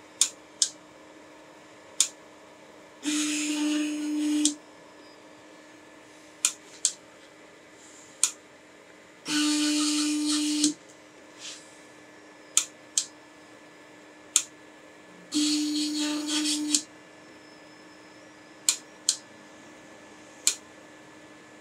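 Orcinus 3D printer running quad gantry leveling: stepper motors drive with a steady whine for about a second and a half, three times, about every six seconds. In between come sharp single clicks in threes, two close together and a third a little later, from the bed probe triggering.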